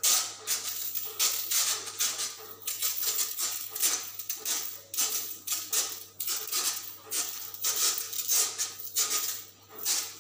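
Insecticide spray hissing from a pest-control sprayer's lance in quick repeated bursts, about one or two a second, over a steady low hum.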